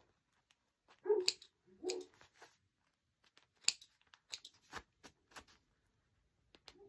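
Small thread snips clicking as the loose jump threads between embroidered letters on vinyl are trimmed: a scatter of short sharp snips. About a second in come two brief voiced sounds, louder than the snips.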